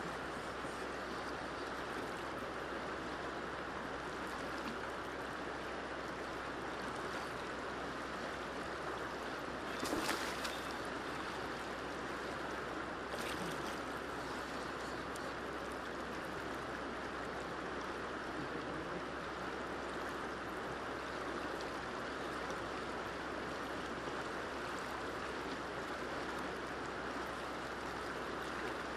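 Steady rushing of a river's current. A brief knock or splash sounds about ten seconds in, and another about three seconds later.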